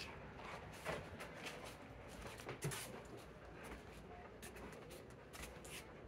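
Faint footsteps and rustling as the phone is carried, with scattered light taps over a low room rumble.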